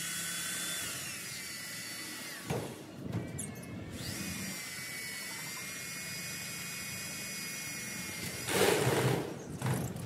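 Cordless drill driving a screw into a roof sheet: the motor whine slows and stops about two and a half seconds in, then runs again steadily from about four seconds in. A brief louder burst of noise comes near the end.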